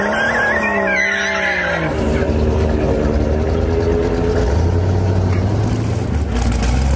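A Toyota Supra and an Acura NSX revving at the drag-strip start line, engine pitch rising and falling, then launching hard and pulling away down the track, their engines running on steadily from about two seconds in.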